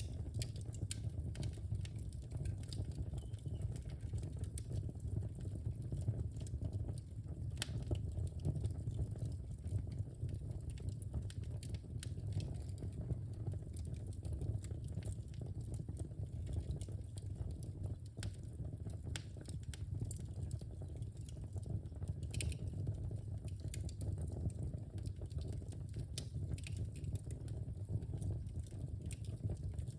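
Wood fire burning in a fireplace: a steady low rumble of flames with frequent irregular crackles and sharp pops from the burning logs.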